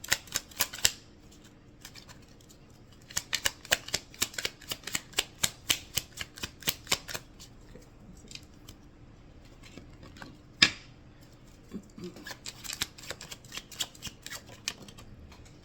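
A deck of oracle cards being shuffled by hand: runs of quick, sharp card clicks and snaps, with one louder single snap about ten seconds in.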